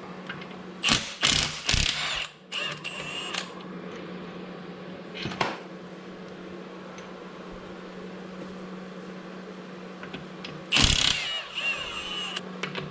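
Metal clinks and knocks from hand tools working on the engine's rear seal cap: a few sharp knocks near the start, one about five seconds in, and a cluster near the end, over a steady low hum.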